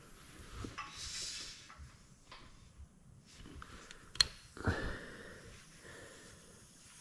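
Faint handling noises at a pressurised sandblaster pot: a short hiss of air about a second in, a sharp click a little after four seconds, and a clunk just after it.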